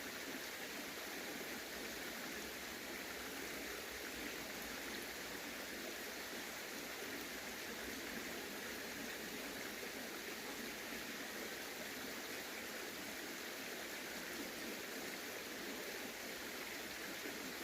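Steady rushing of a flowing stream, an even hiss of running water that does not change.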